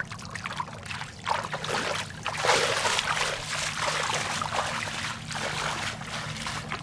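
Water splashing and sloshing in irregular bursts, loudest around the middle, over a steady low hum.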